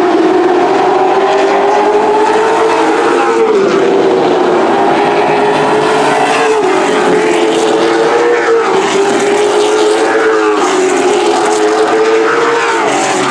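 Racing Super Truck engines at full throttle around a short oval track. Their pitch climbs along each straight and drops sharply as they lift for a turn, about five times.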